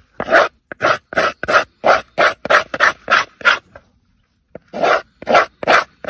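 A knife scraping out the inside of a dried calabash gourd shell in quick, short, rasping strokes, about three a second, with a pause of about a second partway through.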